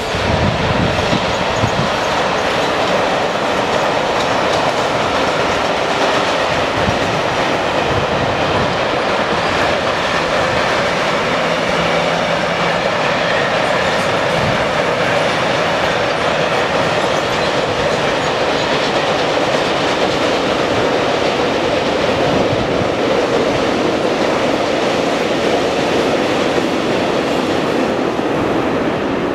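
A long freight train's wagons rolling past on the rails, a loud, steady rolling noise of wheels on track that holds evenly as the string of wagons goes by.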